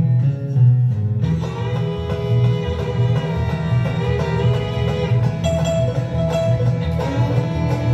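Live acoustic bluegrass band playing an up-tempo tune, with fiddle, banjo, guitar and upright bass; the full band comes in about a second in over a steady driving bass pulse.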